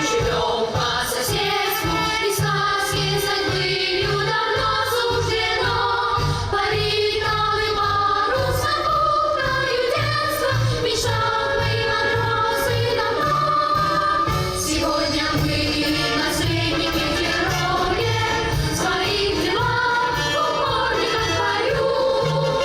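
Children's choir singing a melody in several voices over an instrumental accompaniment with a steady, rhythmic bass line.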